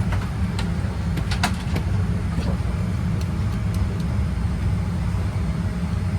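Steady low rumble of a Boeing 787-8 Dreamliner's passenger cabin at the gate during boarding, with scattered light clicks and knocks.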